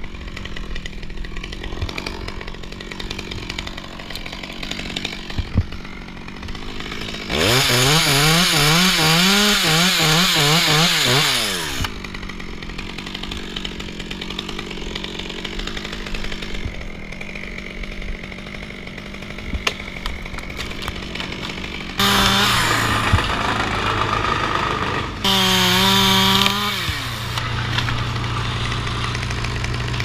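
Stihl MS 200T two-stroke top-handle chainsaw idling and revved up to cut through sycamore limbs. One long cut of about four seconds comes early in the first half, its pitch wavering as the chain bites. Two shorter revs follow close together in the second half.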